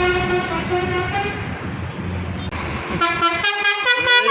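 Basuri musical bus horn playing a melody of stepped notes over diesel engine and road noise. The notes stop about a second and a half in. Near the end another basuri horn melody starts, with sliding notes.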